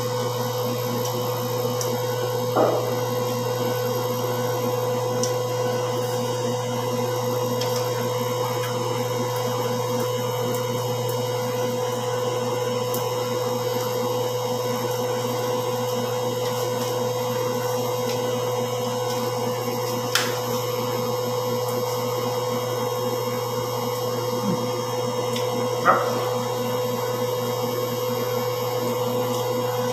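Steady machine hum, such as a fan or air-conditioning unit running, with a constant mid-pitched tone over a low drone. A few brief clicks come through, one a couple of seconds in and two near the end.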